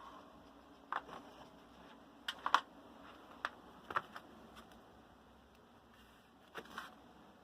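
Scattered light clicks and taps of handling noise, about seven in all, the sharpest pair about two and a half seconds in, over faint room tone.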